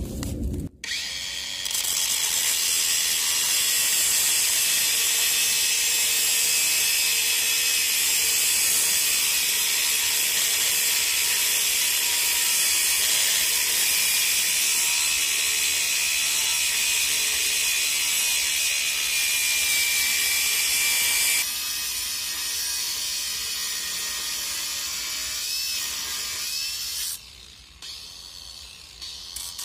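Ryobi cordless angle grinder cutting through steel rebar, a loud steady high grinding hiss. The sound changes abruptly about two-thirds of the way through and drops away briefly near the end before picking up again.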